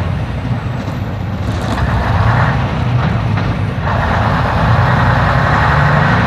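Leyland double-decker bus engine running, heard from inside the bus behind the driver's cab, its note climbing slightly in the second half.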